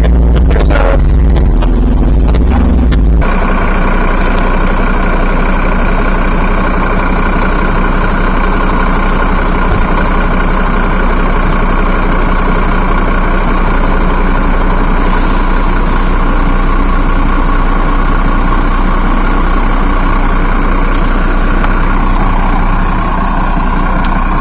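Flatbed tow truck's engine idling steadily. For the first three seconds a louder low rumble with a few sharp knocks is heard, and it stops abruptly.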